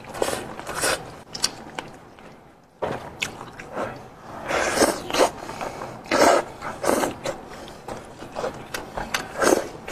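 Close-miked mukbang eating sounds: plastic-gloved hands tearing meat off a cooked sheep's head, and the meat being bitten and chewed, in irregular bursts with a short lull about three seconds in.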